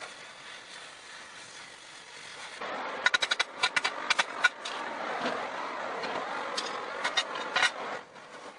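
Welding arc on steel, a crackling sizzle with many sharp pops, starting about two and a half seconds in and cutting off abruptly near the end.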